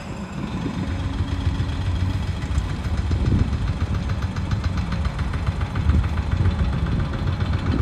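An engine running steadily with a fast, even ticking clatter, over a low rumble of wind on the microphone.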